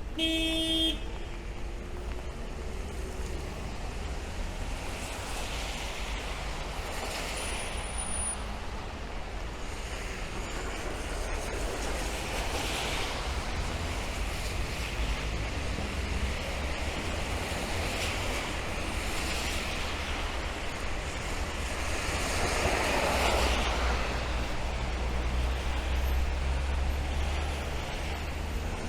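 Rain and city traffic on wet streets: a steady hiss with tyres swishing past again and again, one vehicle louder about two-thirds of the way in. A short beep sounds at the very start.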